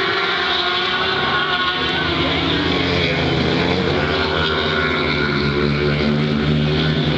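Engines of several racing superbikes at speed, their pitch rising and falling with throttle and gear changes.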